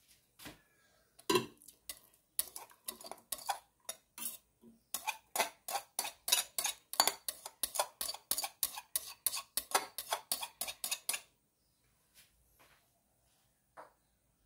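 A steel spoon clinking and scraping against the side of an aluminium pressure cooker as grated garlic is knocked off it into the oil. It is a quick run of clinks, about three a second, that stops about eleven seconds in.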